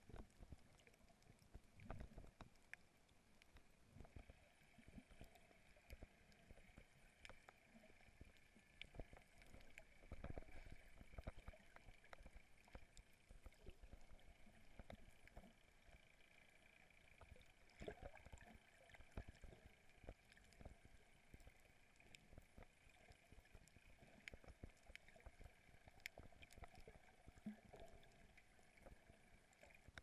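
Near silence underwater: faint crackling with scattered soft clicks and knocks.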